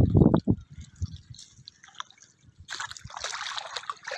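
Shallow muddy water splashing and trickling as people grope for small fish by hand in it: a few low splashes in the first half second, then a steadier trickling hiss from near three seconds on.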